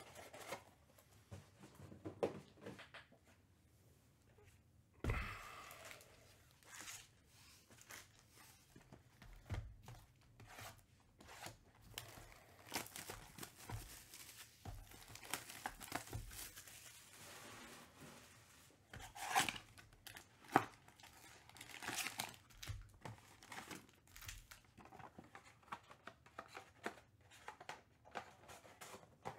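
Plastic shrink wrap being torn and crumpled off a sealed trading-card box, in irregular crinkling bursts, with a sharp thump about five seconds in as the box is handled.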